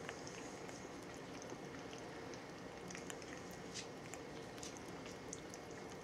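An African grey parrot's beak nibbling a soft banana: faint, irregular wet clicks and squishes over a steady background hiss.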